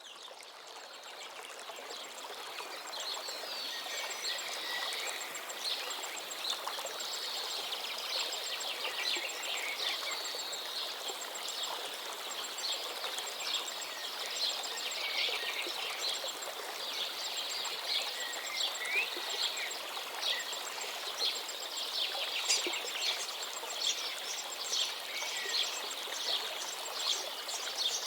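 A chorus of many songbirds chirping and trilling over a steady rush of flowing water, fading in over the first few seconds.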